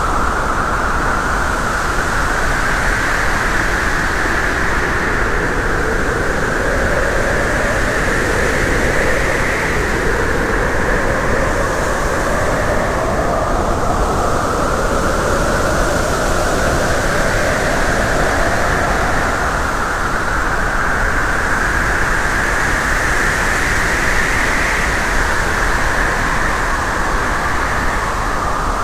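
Steady rushing road and wind noise of a vehicle on the move, its tone slowly rising and falling.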